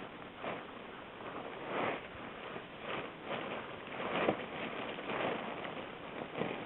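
Irregular rustling and swishing noises, with a sharper knock about four seconds in.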